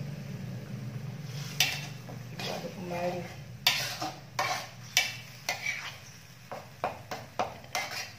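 Metal spatula scraping and tapping against an aluminium wok, stirring chili, tomato and shallot paste that is sizzling lightly in hot oil. The strokes start about a second and a half in and come irregularly, about one or two a second.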